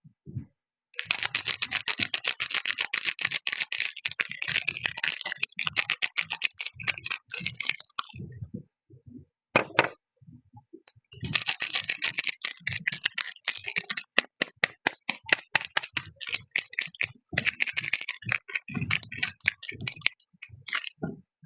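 Soap packaging being unwrapped by hand: dense crinkling and crackling of wrapper, in two long spells with a pause of about three seconds between.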